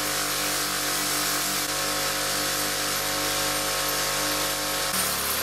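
Bench grinder running with a wheel spinning, a small piece of metal hardware held against it to clean it up: a steady motor hum under a loud hiss. The sound changes and stops near the end.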